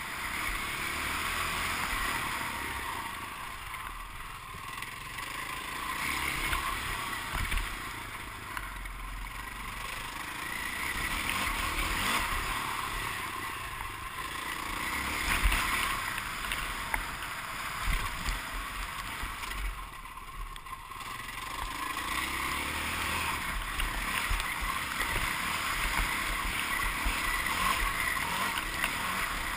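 Motocross bike engine being ridden hard, revving up and backing off over and over, the level swelling and dipping every few seconds, heard from an onboard camera with wind rush.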